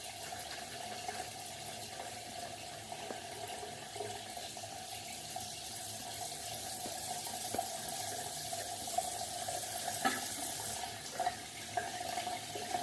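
Bathroom tap running steadily into a sink, with a few faint knocks near the end.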